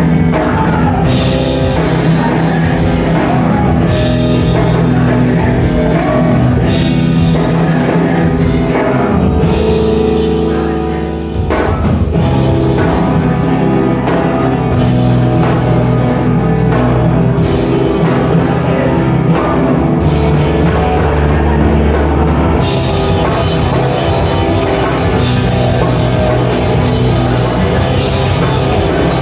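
Hardcore/screamo band playing live, loud and dense: distorted guitars, bass and drum kit. About ten seconds in the music thins out briefly, then crashes back in near the twelve-second mark, and for the last several seconds the cymbals wash over everything continuously.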